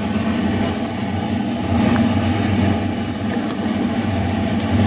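Pot of beef soup bubbling at a rolling boil, over a steady low hum.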